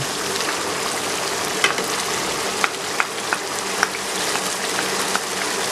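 Chicken masala frying in a nonstick karahi, a steady sizzling hiss with scattered small pops. The yogurt's water has nearly cooked off.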